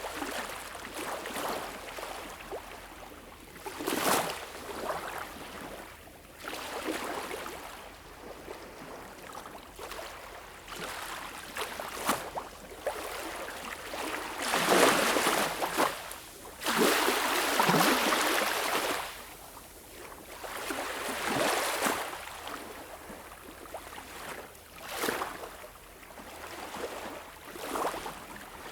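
Small waves lapping and washing up on a beach shore, an uneven run of swells and splashes. The biggest wash comes about halfway through and lasts several seconds, with shorter sharp splashes between.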